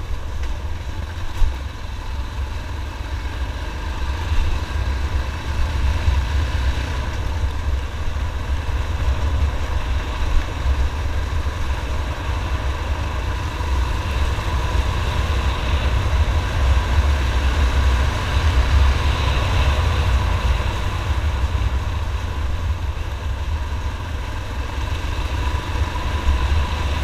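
Motorcycle engine running steadily while riding over a dirt trail, with heavy low wind rumble on the microphone and a single sharp knock about a second and a half in.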